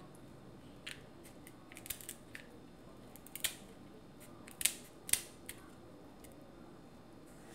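Kitchen shears snipping through shellfish shell: about ten irregular sharp snips and cracks, the loudest about halfway through.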